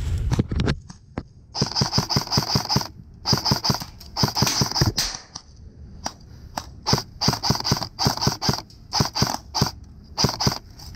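Airsoft rifle firing: two runs of rapid full-auto shots starting about a second and a half in, then a string of quick single shots from about six and a half seconds on.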